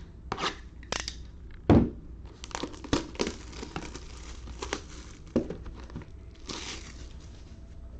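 Plastic wrapping crinkling and tearing in short crackles as a sealed trading-card hobby box is opened and its packs are taken out, with a single louder knock about two seconds in.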